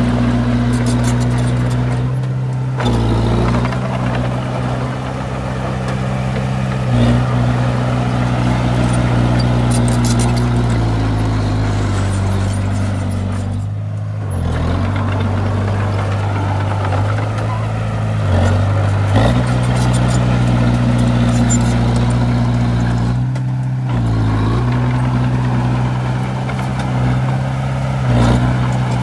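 Diesel engines of heavy earthmoving machinery running steadily under load, their pitch stepping up and down several times as the machines work.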